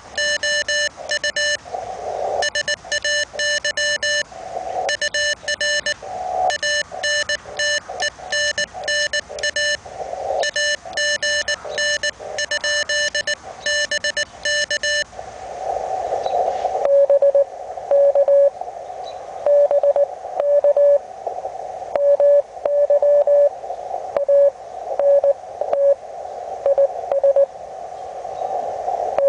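Morse code on a Hendricks PFR-3A QRP CW transceiver. For about the first fifteen seconds it plays buzzy, harsh-edged keyed beeps, like a transmit sidetone. It then changes to a purer keyed tone in a band of receiver hiss: a weak received CW signal heard through the radio's narrow filter.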